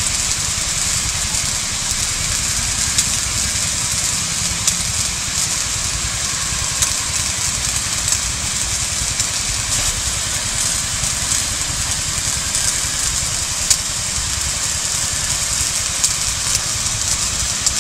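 Small engine of a power sprayer running steadily, with the hiss of the water jet from the spray gun as it douses smouldering bamboo.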